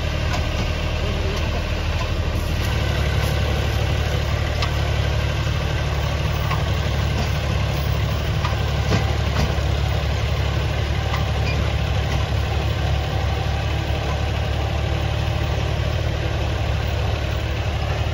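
Tractor diesel engine idling steadily, a deep even hum with a few faint scattered ticks.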